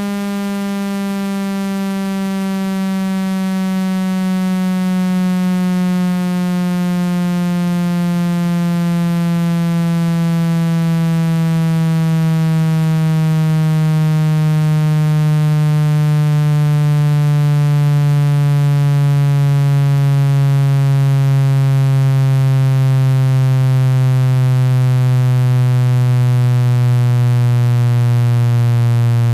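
Electronic water-ejection tone for clearing a phone speaker: a loud, buzzy low tone with many overtones, sliding slowly and steadily down in pitch.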